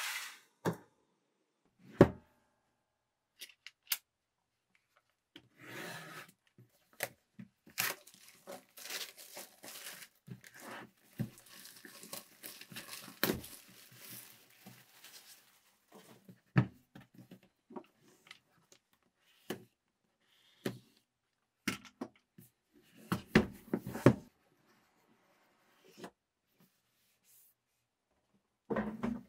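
Unboxing handling sounds: a cardboard box set down and slid on a cutting mat with a few sharp knocks, then plastic shrink wrap being torn and peeled off it in a long crinkling stretch, followed by more knocks and rubbing as the box is handled and opened.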